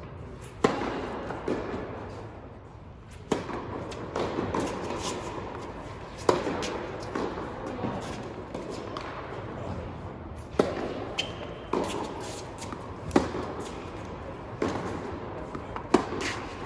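Tennis balls struck by racquets: the serve, about half a second in, then a rally of sharp pops every one to four seconds, each with a short echo from the indoor hall.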